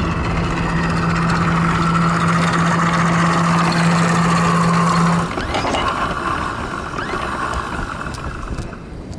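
Electric anchor windlass humming steadily as it pays out the anchor chain, then stopping abruptly about five seconds in. A steady rushing noise carries on underneath.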